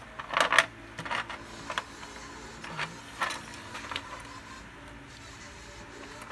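A handful of sharp plastic clicks and knocks from handling a small UV sterilizer box while AAA batteries are fitted into the battery compartment in its lid. The loudest cluster comes about half a second in.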